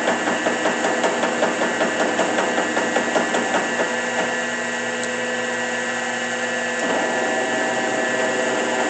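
Blanchard 11-16 rotary surface grinder running, its chuck drive knocking about four times a second in the low speed range, a knock the seller points out as a known flaw of this older machine. A little under four seconds in the knocking stops as the chuck speed is changed, leaving a steady machine hum with a high whine, which shifts again near the end.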